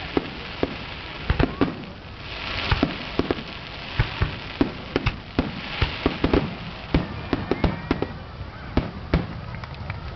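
Aerial fireworks shells bursting in quick, irregular succession: many sharp bangs, several a second at times, with stretches of hissing crackle between them.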